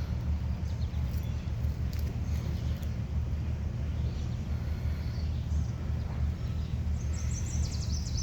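Small birds chirping faintly, with a quick trill of repeated high notes near the end, over a steady low rumble.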